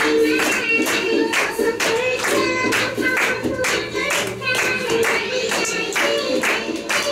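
Audience clapping along in time, about two claps a second, to a song with singing.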